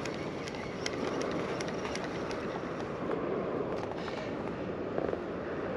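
Gentle sea water lapping, with scattered small clicks and splashes over a steady outdoor hiss.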